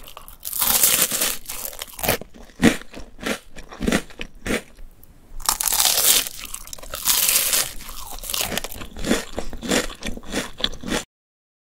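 Close-miked biting and chewing of crispy rice cereal treats, loud and crunchy. There are two big bites, one right at the start and one about six seconds in, each followed by quick chewing crunches. The sound cuts off suddenly near the end.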